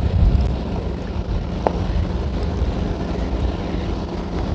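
Small motorboat engine running steadily as the boat passes, with wind gusting on the microphone.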